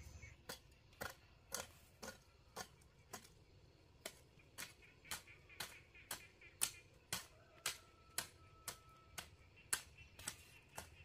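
Garden hoe chopping into weedy soil in quick, regular strokes, about two a second.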